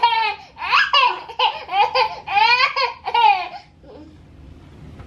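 High-pitched laughter in a rapid run of short bursts, each falling in pitch, stopping about three and a half seconds in.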